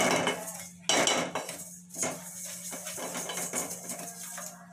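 Spatula scraping and knocking against an aluminium pot while stirring dry-roasted urad dal powder. The strokes come about once a second, loudest at the start and about a second in, with lighter scraping between.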